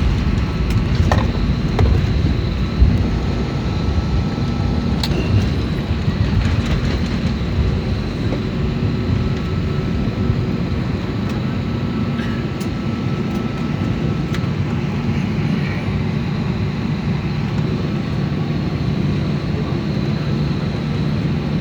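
Steady low rumble of airliner cabin noise after landing, with a few faint clicks and rattles in the first half.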